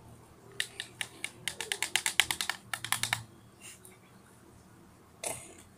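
A quick run of about twenty light plastic clicks and taps, several a second, as small plastic cups, lids and a container are handled. The clicks stop about three seconds in, and a short puff of noise follows near the end.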